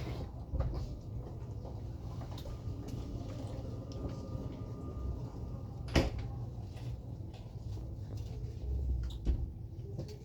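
Interior of a stopped train carriage: a steady low hum with scattered small knocks and clicks, and one sharp click about six seconds in.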